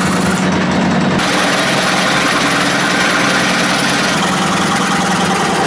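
Electric scroll saw running, its thin blade moving rapidly up and down as it cuts through a block of wood: a steady, fast mechanical buzz. The sound shifts slightly about four seconds in.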